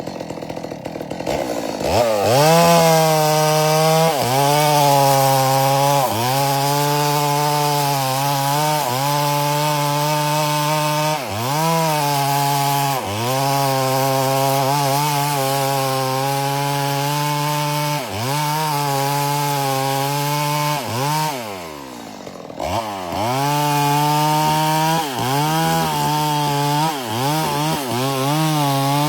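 Chainsaw revving up about two seconds in and running at high speed through a cut, its pitch sagging and recovering every second or two as it takes the load. About three-quarters of the way through it drops back briefly, then revs up again.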